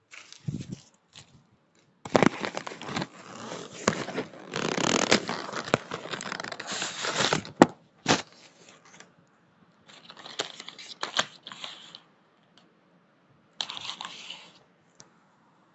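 Paper being torn and crumpled as a handmade paper fidget-toy blind bag is ripped open: a long stretch of tearing and crinkling, then two shorter bursts, with a few sharp clicks.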